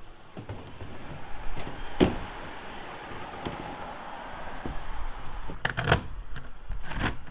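Thule plastic roof cargo box being set down onto metal roof crossbars and slid into place: a sharp knock about two seconds in, a scraping hiss as it moves, and a quick cluster of knocks and clatters near the end.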